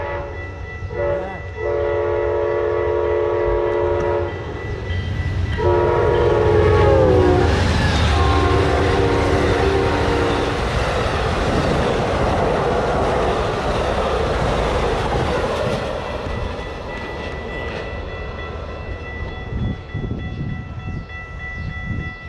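Amtrak locomotive's multi-chime air horn blowing a series of long blasts as the train approaches. The chord drops in pitch as the locomotive passes, then gives one last lower blast. The train then rushes by with a loud rumble and wheel clatter that slowly fades.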